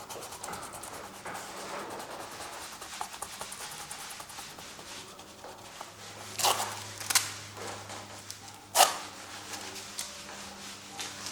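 Acrylic paint being worked onto a canvas with a painting tool: a run of fine, quick scratchy strokes, then three louder, sharper strokes or scrapes in the second half.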